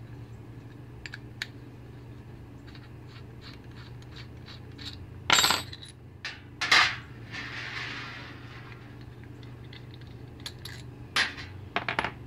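Metal-on-metal work on a brake caliper over an aluminium baking tray: light clicks of a hex key turning the caliper-half bolts, then two loud sharp clinks about five and seven seconds in as metal is set down on the tray, a brief scraping hiss, and more clinks near the end. A steady low hum runs underneath.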